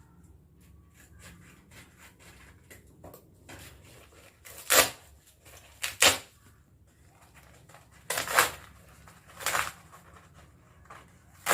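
Postal packaging around a book being torn open by hand: five short tearing sounds a second or two apart, starting about halfway through, after quieter handling.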